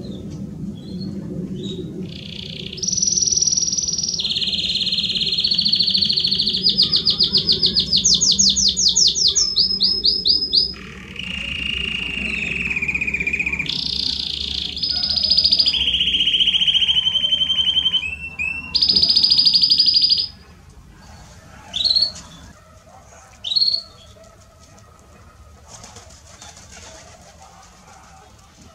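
Belgian canary (domestic canary) singing a long song of held whistled notes and very fast rolling trills, which stops about twenty seconds in. A few short single chirps follow.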